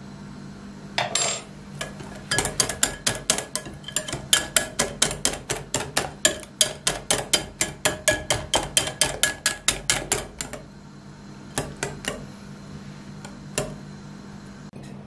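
Metal wire whisk beating a thick egg-and-flour batter in a glass bowl, its wires knocking the glass in quick, regular clicks, about five a second, for some eight seconds, then a few scattered taps. A short clatter about a second in, and a steady low hum underneath.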